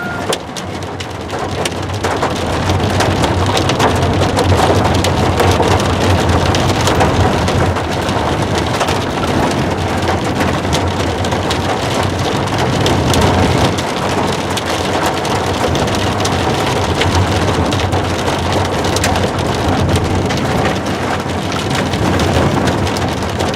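Heavy rain pelting the roof and windshield of a moving vehicle, with a dense patter of sharp drops and a steady low road and engine rumble underneath.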